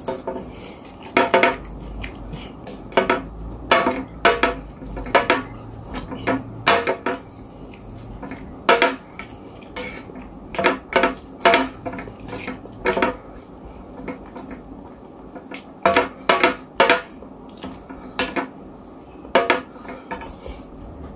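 A fork clinking and scraping against a plate as rice, vegetables and sauce are stirred together, in short irregular clinks, sometimes two or three close together.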